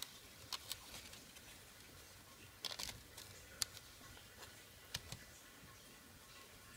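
Faint, scattered clicks and taps of a Maxell CD-R disc and its plastic packaging being handled, with a small cluster of clicks a little before the middle.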